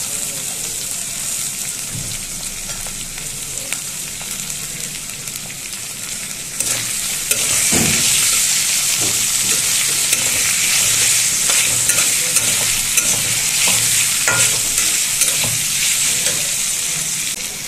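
Sliced onions sizzling in hot oil in a metal wok, stirred with a metal spatula that scrapes and clicks against the pan. The sizzle gets louder about seven seconds in.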